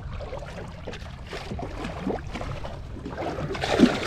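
Seawater lapping and sloshing against the side of a boat, with a louder splash near the end as the camera dips under the surface.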